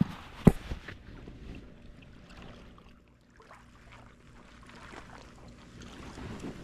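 Two sharp knocks about half a second apart, then faint handling noise with scattered small clicks.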